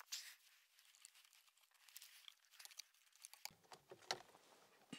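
Near silence with faint rustling and scattered light clicks as hands handle a car's steering wheel.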